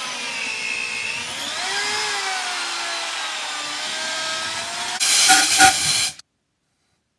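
Power drill running in the stud holes of a cast-iron Caterpillar Sixty cylinder head, cleaning them out. Its whine rises and falls slightly with speed, gets louder and rougher about five seconds in, then cuts off abruptly.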